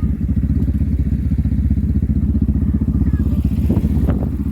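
Motorcycle engine running steadily without revving, its exhaust pulses even, with a few sharp clicks near the end.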